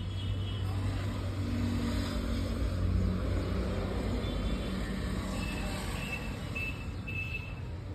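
A motor vehicle's engine running steadily as a low rumble, with a few short, faint high chirps in the second half.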